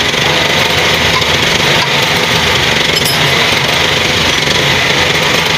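R180 single-cylinder diesel engine running at a steady speed after its rebuild, a loud, even mechanical beat.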